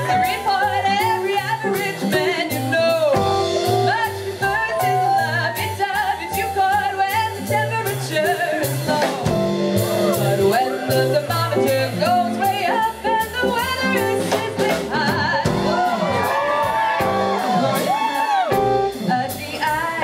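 Live jazz band playing a swing number, with upright bass and drums, and a woman singing.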